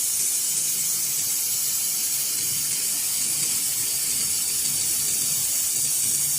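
Handheld laser welding gun in operation, giving a steady loud hiss of its gas flow with a faint hum underneath.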